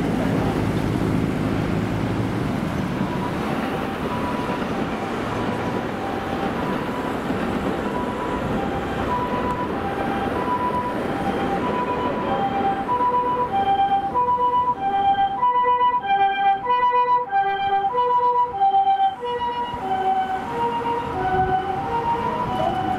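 Japanese ambulance's two-tone electronic siren, a high and a low note alternating in a pee-poh pattern about once a second. It grows louder to its loudest a little past the middle, then eases off slightly, over road traffic noise.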